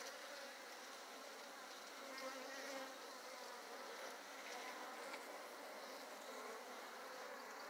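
A honey bee colony buzzing faintly and steadily on the combs of an opened hive.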